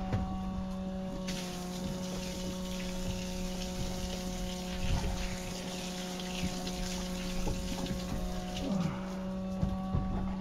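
A steady motor hum with rushing, splashing water over it; the water sound starts suddenly about a second in.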